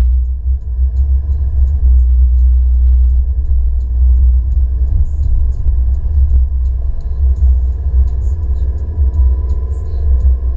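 Steady low rumble of an Alfa Romeo MiTo driving along the road, its road and engine noise heard inside the cabin through a windscreen suction mount, with faint light ticks now and then.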